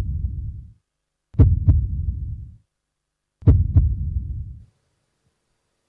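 Heartbeat sound effect: deep double thuds, each pair a quick sharp hit then a second, followed by a rumbling tail of about a second, repeating roughly every two seconds and stopping near the end.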